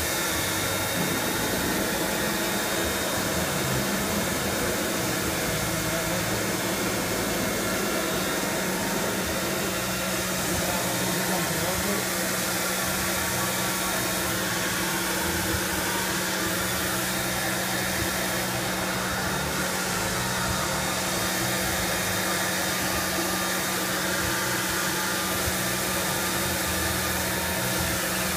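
Motionmaster 5-axis CNC router running: a steady mechanical whir with several held tones. A lower hum joins about ten seconds in, while the router head slowly tilts and swivels.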